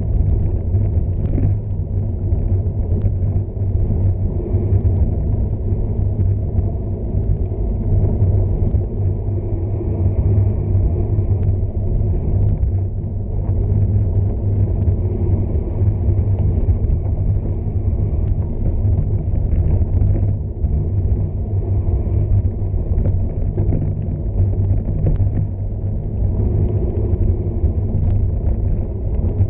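Steady wind noise on the camera microphone of a gravel bike descending a dirt road at about 20 mph, with the 43 mm Panaracer GravelKing SK tyres running over loose gravel and frequent small clicks and rattles from stones and the bike.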